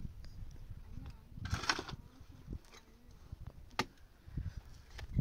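Shovel blade striking and scraping into a dry earthen bank: a sharp knock at the start, a gritty scrape of loosened soil about a second and a half in, and another sharp knock later, with soft thuds of falling earth between.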